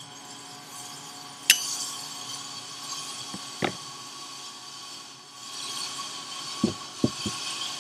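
Small metal clicks and clinks of a turbocharger's turbine-wheel shaft and its piston ring seal being handled and worked together by hand. A sharp, bright click about a second and a half in is the loudest, with a lighter click near the middle and a quick run of three duller knocks near the end.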